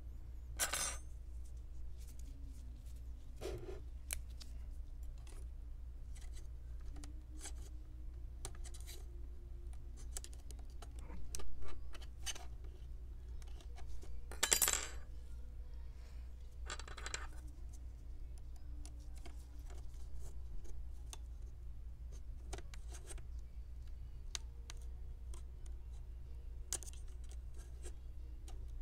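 Metal tweezers clicking and scraping as they pick at the sticky adhesive strip holding a laptop's LCD panel, with scattered small ticks and a few sharper clinks over a steady low hum.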